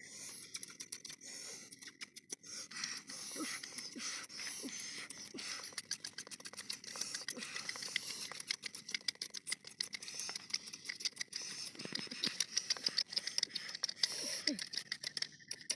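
Hand food preparation: knives cutting and peeling vegetables and a wooden pestle working in a wooden mortar, making a dense run of small clicks, taps and scrapes.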